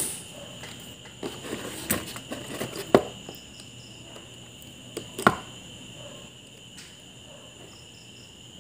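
Sharp clicks and taps of hand tools working on a circuit board while a resistor is being removed. There are a few scattered knocks, the loudest about three and five seconds in, over a steady high thin tone.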